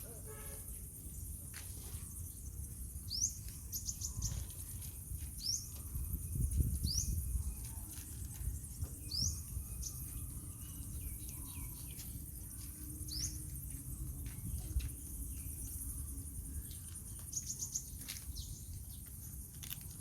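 Bird chirps: short rising chirps every second or two, some single and some in quick runs of three or four. They sit over a low rumble that is loudest about six to seven seconds in, and a steady high hiss.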